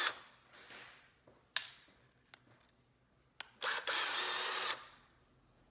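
Small power driver running for about a second as it backs out a T8 Torx screw. A sharp click comes twice before it, and the end of an earlier run fades out at the start.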